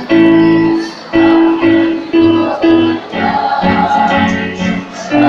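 A choir singing a melody in a run of short held notes, each about half a second long.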